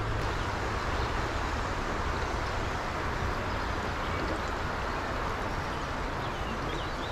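Steady rushing of a fast, rocky stream: an even hiss of flowing water with a low rumble beneath.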